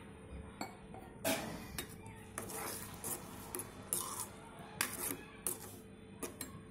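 Steel ladle stirring a watery masala gravy in a pan, scraping and clinking against the pan's sides and bottom in irregular strokes.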